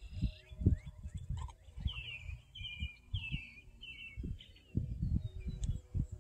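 A bird calling a run of about five quick, falling chirps between about two and four seconds in. Under it, irregular low rumbling bursts are the loudest sound throughout.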